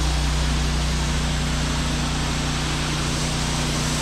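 Pressure washer running steadily, a fan-tip nozzle hissing as it sprays rinse water onto vinyl siding, over a low steady machine hum.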